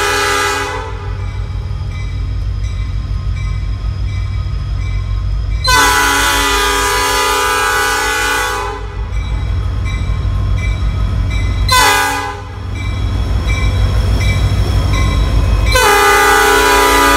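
Nathan P5 five-chime air horn on a Norfolk Southern SD40-2 blowing long, long, short, long: one blast ending about a second in, a long one about six seconds in lasting some three seconds, a short one near twelve seconds, and a last long one from about sixteen seconds. This is the pattern of a grade-crossing warning. Underneath, the low rumble of the passing diesel locomotives' engines.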